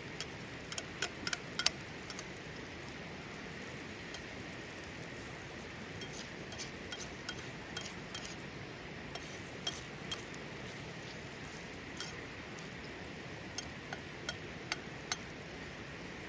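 Steady sizzling hiss with scattered sharp pops and crackles, a cluster about a second in and more near the end: salted pork offal frying on an iron griddle over a wood fire.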